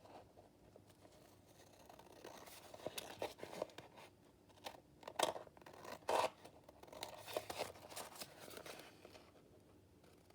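Scissors trimming paper: a run of irregular short snips and paper rustles, with a few sharper cuts in the middle.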